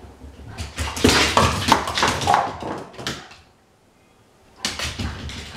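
A measuring cup clattering and bouncing on a wooden floor as a Shiba Inu plays with it: a long run of quick knocks, a pause, then more knocking near the end.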